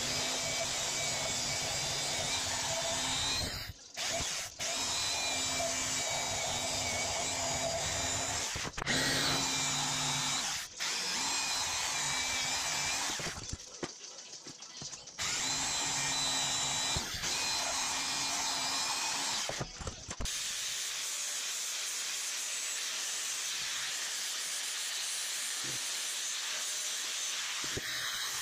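Portable band saw running as it cuts through a metal bar held in a vise. It is heard in several stretches of a few seconds each that break off abruptly. The last third is a steady hiss.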